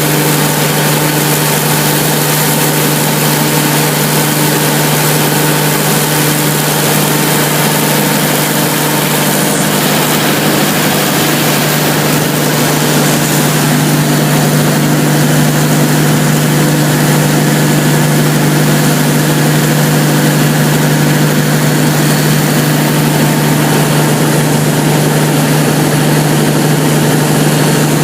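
Cummins KTA38-G4 V12 diesel engine of a 900 kW generator set running at steady speed under test, a loud constant drone with a strong steady hum; it gets slightly louder about halfway through.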